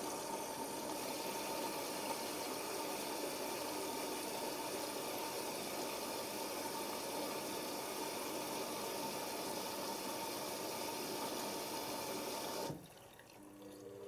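Hoover Nextra washing machine taking in water through its inlet valve during the prewash: a steady rushing hiss with a faint thin whistle, which cuts off abruptly near the end.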